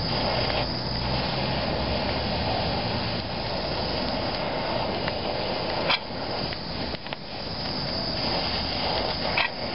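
Fire burning out the old toe-arm bushings: a steady hissing flame noise with a low fluttering rumble, and a couple of sharp crackles about six seconds and nine seconds in.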